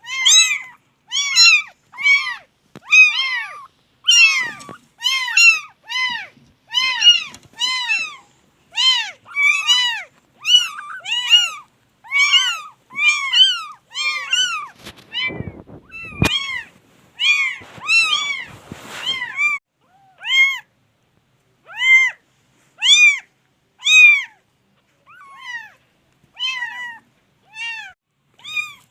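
Kittens meowing over and over, short high-pitched meows that each rise and fall in pitch, coming in quick succession and growing sparser in the last third. A brief rustle and a single knock come about halfway through.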